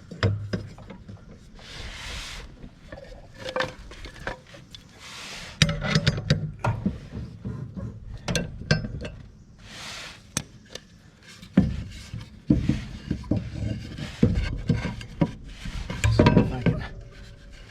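Metal hand tools and mower-blade hardware clinking and knocking irregularly while a zero-turn mower's cutting blade is fitted back onto its deck spindle, with a few short hissing rushes in between.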